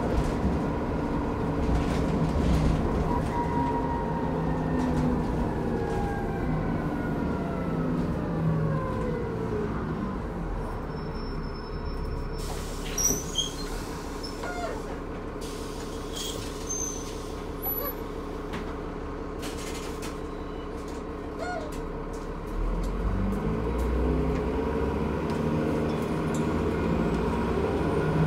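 Transbus ALX400 Trident double-decker bus heard from the upper deck: its engine and transmission whine falls away as it slows, then it runs quieter and steadier for about twelve seconds with a short burst of noise about halfway through. Near the end the engine note climbs again as it pulls away.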